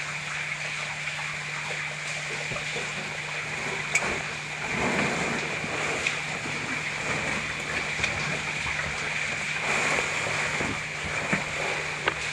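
Rustling and scraping of a caver's oversuit and ropes as gear is handled at a rope anchor, with a couple of sharp clicks like carabiners, over a steady hiss.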